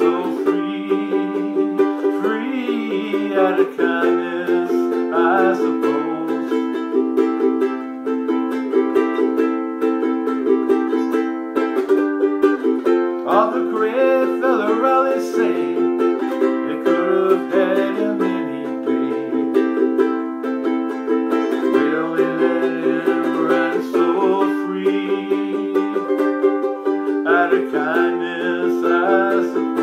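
Ukulele playing an instrumental passage, with no singing.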